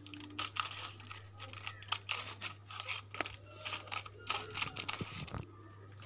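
Steel scissors snipping through aluminium foil: a run of irregular crisp snips with the foil crinkling, and a couple of low thuds near the end.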